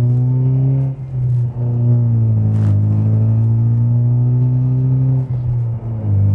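Loud 2.3-litre turbocharged four-cylinder of a Mustang EcoBoost running through an MRT off-road turbo-back exhaust with no catalytic converter, under acceleration. Its pitch climbs, then falls back with upshifts about a second in, again after a few seconds, and near the end.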